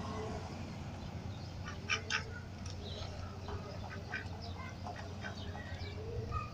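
Domestic mallard drake calling in short, quiet notes several times, among scattered small clicks.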